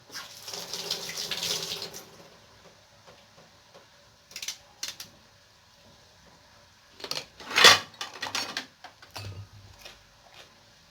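Kitchen tap water running for about two seconds, then scattered clicks and one sharp knock a little past halfway as kitchen things are handled.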